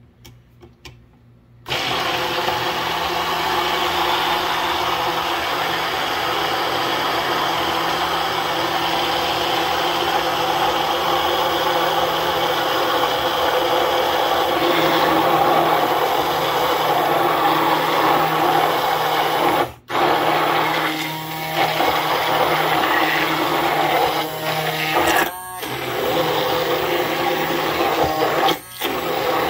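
Hand-held immersion blender running in a tall plastic cup, emulsifying egg, mustard and oil into mayonnaise that thickens as it blends. The motor starts about two seconds in and runs with a steady hum, cuts out briefly about two-thirds of the way through, then stops and starts a few times near the end.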